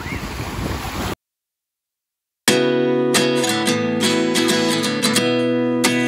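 Wind noise on the microphone with surf, cut off abruptly about a second in. After a second or so of silence, acoustic guitar music starts with strummed and plucked chords.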